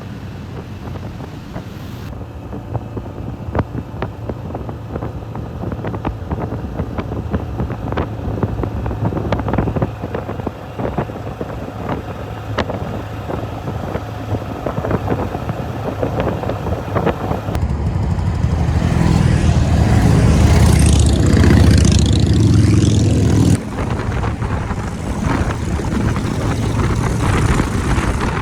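Motorcycle engine running under way, a steady low hum with scattered short clicks. It grows louder for about five seconds past the middle, then drops back suddenly.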